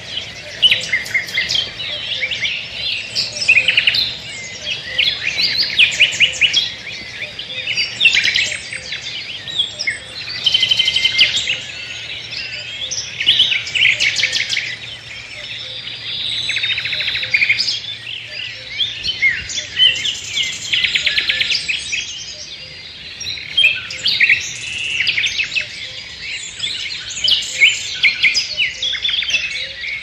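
Several songbirds singing and calling at once in woodland, a dense chorus of overlapping chirps and rapid trills.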